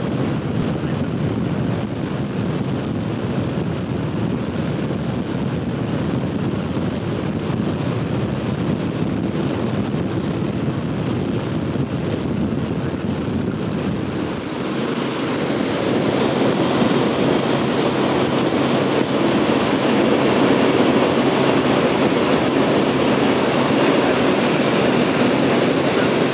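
Steady drone of an aircraft engine with wind rushing past, heard from inside the aircraft's cabin. It becomes louder and fuller about halfway through.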